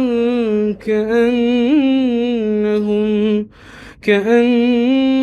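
Solo male Quran recitation in a melodic chanting voice, drawing out long held vowels with slow ornamental wavers. There is a short break for breath about three and a half seconds in before the next phrase begins.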